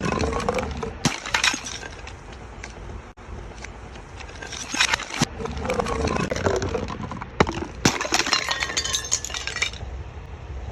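Glass bottles breaking: several sharp crashes of shattering glass, with dense clinking of shards about eight seconds in.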